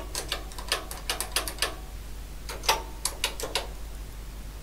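Keys of a Toshiba TOSCAL BC1411 nixie tube calculator clacking as a number and a division are keyed in. A quick run of clicks is followed, after about a second's pause, by a second short run of clicks.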